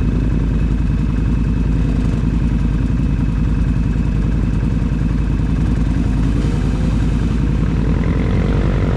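ATV engine running steadily under way, with the revs rising about two-thirds of the way through.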